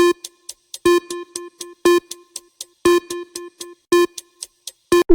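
Countdown timer sound effect: an electronic pitched beat about once a second, six in all, with fainter ticks between them, marking the seconds running out to answer.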